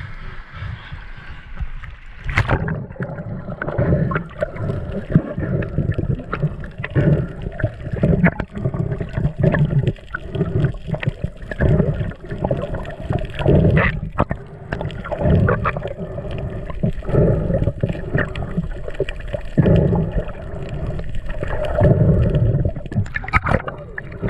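Water noise on a diver's camera: a sharp splash about two seconds in as it goes under, then muffled, uneven underwater rushing and gurgling against the housing as the freediver swims down along the oil-rig legs.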